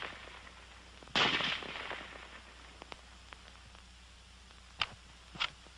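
A single shot from a .30-calibre M1 Garand rifle about a second in, its report dying away over most of a second. Near the end come two sharp clicks as the rifle's mechanism is handled.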